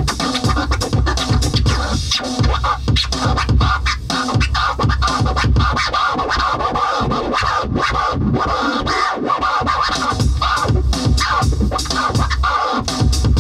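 Electronic music played live on a Native Instruments Maschine groovebox: a steady, heavy beat with DJ-style scratch sounds cut in over it.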